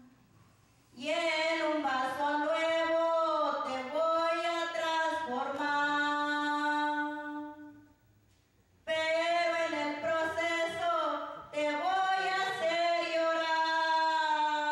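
A woman singing a Spanish worship song unaccompanied into a handheld microphone: two long phrases with held notes, with a short pause about eight seconds in.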